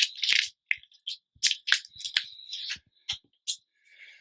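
Close-miked eating sounds: wet mouth clicks, lip smacking and chewing crackles, as a quick irregular run of short sharp clicks.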